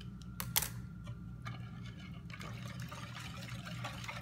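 A spoon stirring root beer mixture in a mixing bowl, the liquid sloshing and trickling. A couple of sharp knocks come about half a second in, and the splashing grows busier about halfway through.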